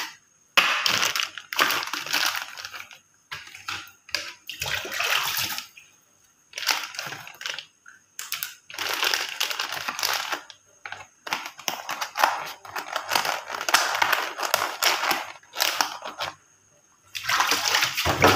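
Water from a kitchen tap running and splashing into a sink in on-and-off stretches, each lasting one to four seconds, as things are rinsed.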